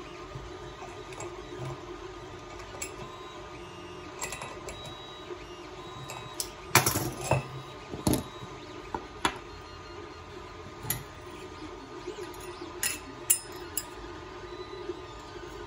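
Scattered metal clinks and light knocks as the plates of a home-built variable capacitor and hand tools are handled on a workbench, loudest in a quick rattle about seven seconds in. Under them runs a steady hum from a 3D printer at work.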